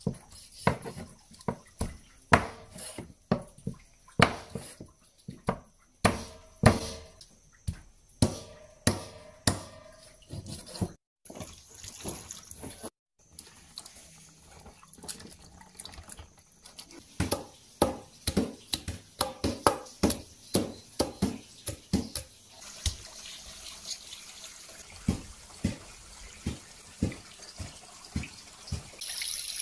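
Water sloshing and dripping as roots are washed by hand in a metal basin, among a string of sharp knocks and clatters of utensils and food. Later a steady hiss of running water sets in, growing louder at the very end.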